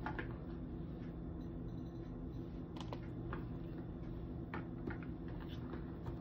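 A few light, scattered clicks and taps as apple slices and plastic food containers are handled and set down, over a steady low hum.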